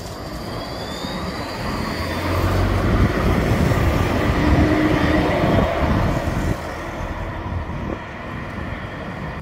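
Alstom NGT DX DD low-floor tram passing close by and moving off, its wheels rumbling on the rails, with a high whine near the start that rises slightly in pitch. The rumble is loudest in the middle and drops about six and a half seconds in.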